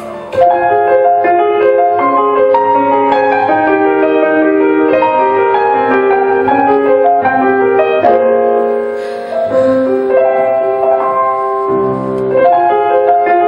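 Instrumental music: a melody of clear, held notes stepping up and down over lower sustained notes, coming in suddenly about half a second in.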